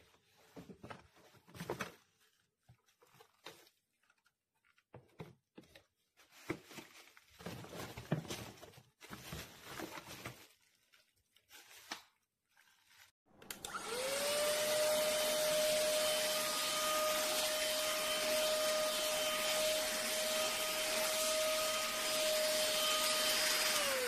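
Plastic wrapping crinkling and rustling in irregular bursts as a cordless handheld vacuum cleaner is handled in its box. About halfway through, the vacuum's motor starts with a quick rising whine and then runs steadily with a high whine and rushing air, starting to wind down right at the end.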